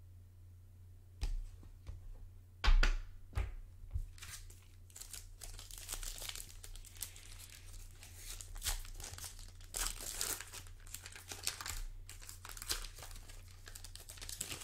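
A few knocks in the first four seconds, the loudest near three seconds in, then the foil wrapper of a basketball trading-card pack crinkling and tearing steadily as it is ripped open.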